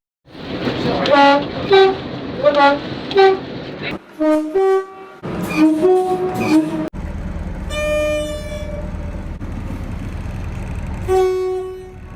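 Train horns in a quick run of edited clips: short blasts alternating between two pitches, cut off abruptly several times. From about seven seconds in, a low rumble runs under a longer horn blast, and a steady horn note sounds near the end.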